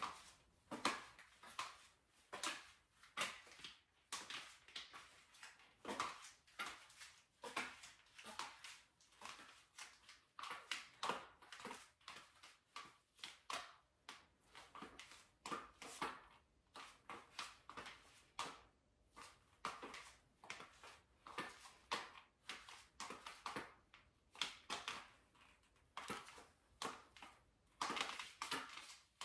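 Stiletto high heels clicking on a tile floor: a walking rhythm of sharp heel strikes, about one to two steps a second, often heard as close pairs.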